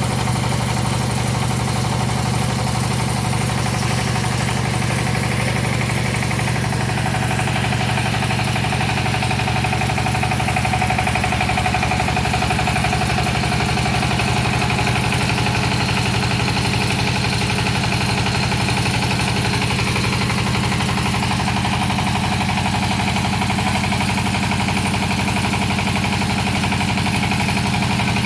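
Engine of a hydraulic water-well drilling rig running steadily on test, with a higher whine above the engine hum that shifts in pitch a few times.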